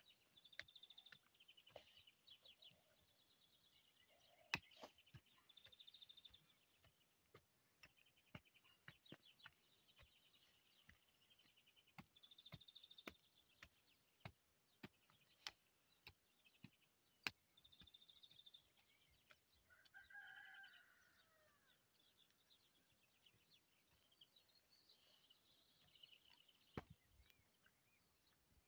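Faint, sharp, irregular knocks of a small hand hoe chopping into garden soil, with small birds chirping and trilling throughout. A rooster crows once, about twenty seconds in.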